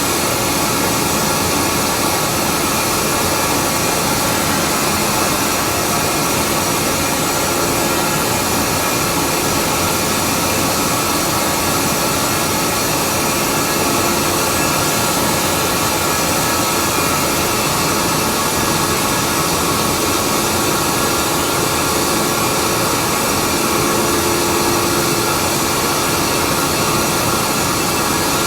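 A 250 hp two-stage screw air compressor running steadily under test. It gives a loud, even machine noise with a steady whine that holds throughout.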